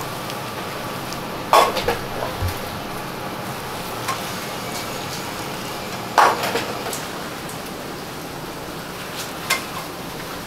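A long-handled metal pot-ladle clanking against a stainless steel stockpot while ladling bonito stock: two loud ringing knocks a few seconds apart and a lighter one near the end, over a steady hiss.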